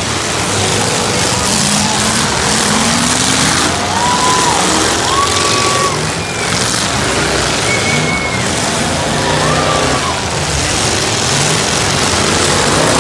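Demolition-derby trucks' engines revving and running hard over a loud din of crowd noise, with a few brief high-pitched tones rising and falling partway through.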